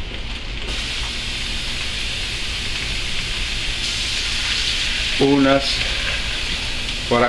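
Papa seca and its seasoned base frying in a non-stick pot over raised heat, sizzling steadily and growing slightly louder.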